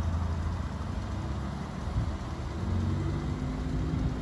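Alfa Romeo Stelvio Quadrifoglio's 2.9-litre twin-turbo V6 idling with a steady low hum.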